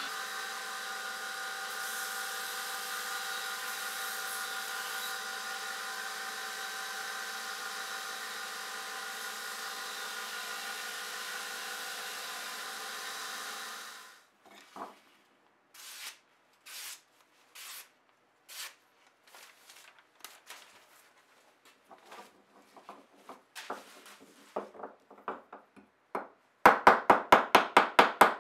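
Knifemaker's belt grinder running steadily with no work on it, cutting off about halfway through. Then a knife blade shaving a piece of wood in separate short strokes, turning near the end into a loud, fast, even run of about four strokes a second.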